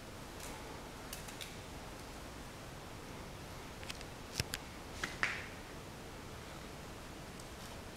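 French bulldog puppy playing with a chew on a tile floor: a few sharp clicks and taps, a couple about a second in and a quick cluster around four to five seconds in, over faint room hiss.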